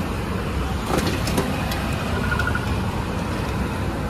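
Hot oil sizzling in a wide iron kadai as batter-coated egg bondas deep-fry, over a steady low rumble. A few sharp metal clicks about a second in, from the slotted spoon against the pan.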